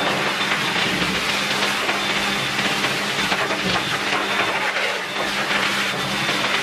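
High-velocity pet dryer blowing air through its hose onto a wet German Shepherd's coat: a loud, steady rush of air over a constant low motor hum.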